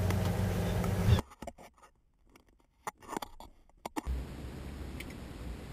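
Idling V8 of a 1968 Mustang heard from inside the cabin, a steady low hum that cuts off abruptly about a second in. Then near quiet with a few small clicks and handling knocks, until a quieter, lower steady hum comes back about four seconds in.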